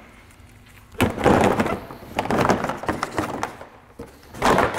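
The 2005 Honda Element's plastic engine splash shield being pulled and worked loose from the underbody by hand. It scrapes, rattles and cracks in uneven bursts starting about a second in, with the loudest burst near the end.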